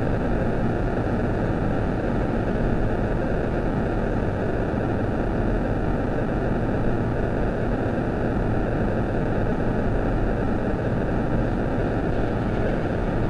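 Steady static-like hiss over a low hum, even and unchanging throughout.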